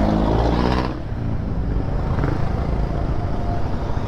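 Motorcycle ridden on the road, with its small single-cylinder engine running under wind and road noise. The engine pitch climbs for about a second, then drops off as the throttle closes, and the engine runs on more steadily.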